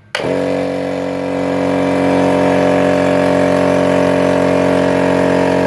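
Multipro DCC-075/10 HS 3/4 hp electric piston air compressor switching on suddenly and running steadily as it pumps up its 10-litre tank. It gets a little louder over the first couple of seconds.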